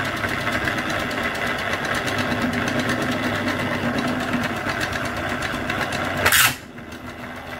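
Small electric motor driving a 3D-printed plastic turbocharger model through plastic gears, running steadily with a fast, even rattle. About six seconds in there is a short, loud noisy burst, after which the sound drops off.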